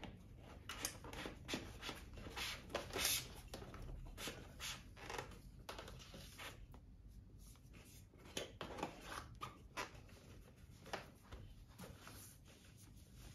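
Faint scattered rustles, scrapes and small clicks of a rubber Voile strap being threaded around a bicycle top tube and pulled tight against a fabric top tube bag.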